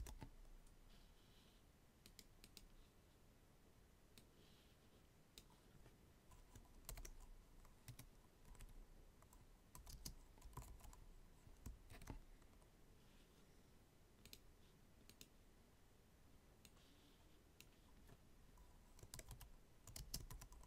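Faint typing on a computer keyboard, keystrokes coming in short scattered bursts with pauses between.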